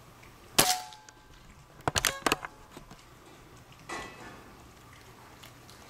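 A single shot from a .22 Benjamin Marauder Woods Walker precharged pneumatic air gun, a sharp crack with a brief metallic ring, about half a second in. A second later comes a quick cluster of metallic clicks and clanks, then one softer click near four seconds.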